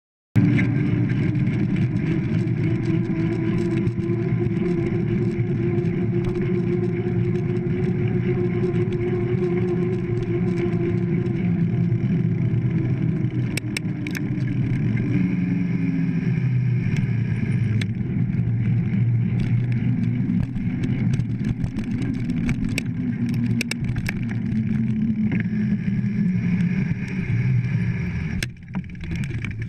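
Mountain bike ridden fast on a paved road, heard from a GoPro mounted on the bike or rider: a steady tyre hum and wind rush whose pitch slowly falls, with scattered clicks and rattles from the bike. The sound drops suddenly near the end as the bike slows.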